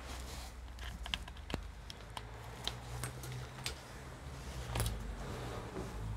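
Typing on a computer keyboard: scattered single keystrokes, a quick cluster about a second in, then irregular clicks every half second to a second, over a low steady hum.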